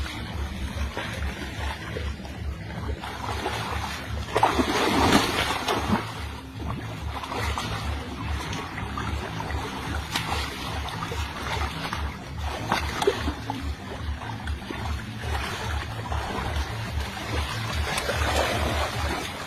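Water splashing in a shallow ditch, loudest about four to six seconds in and again near the end, over a steady low pulsing throb.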